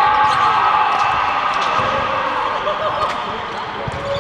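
Athletic shoes squeaking a few times on an indoor sports court, over echoing hall din with distant voices and a steady high hum.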